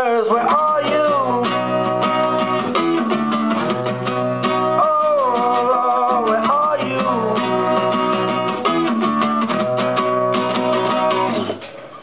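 Acoustic guitar strummed and ringing, with a man's voice singing along in long, sliding notes. The playing dies away just before the end.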